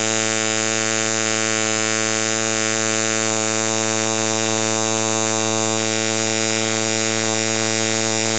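Electric tattoo machine buzzing steadily under foot-pedal power, turned up for more power.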